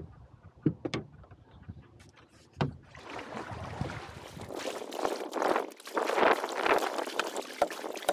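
A few light knocks as the RC hull is handled, then water splashing and swishing in a repeated rhythm as a kayak is paddled along.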